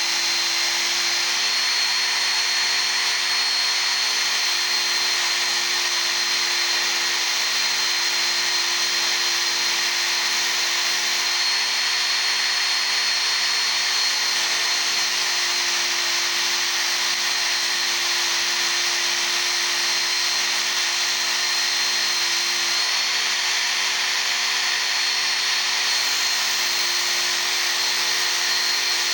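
Work Sharp Ken Onion Edition electric belt sharpener running steadily, its abrasive belt grinding a chisel's steel: an even grinding hiss with a constant high whine.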